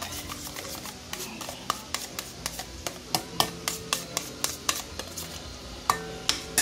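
A metal spoon stirring mayonnaise and cheese sauce in a stainless steel bowl, clinking and scraping against the bowl about three times a second.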